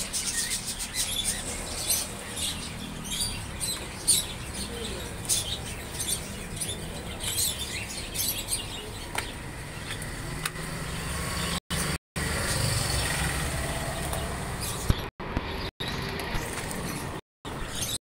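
Many caged birds chirping in quick, short calls, fading about ten seconds in and giving way to the steady hum of street traffic. The sound cuts out briefly several times near the end.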